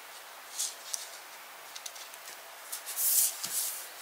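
Soft rustling and a few light taps of small cardstock die cuts being handled and laid out on a work surface, with a louder rustle about three seconds in.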